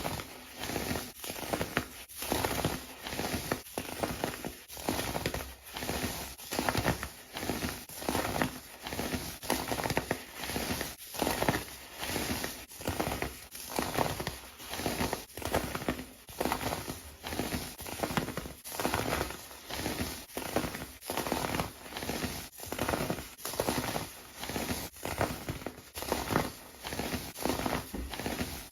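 Kinetic sand being crushed and crumbled, a crackling crunch repeated in a steady rhythm of about three every two seconds.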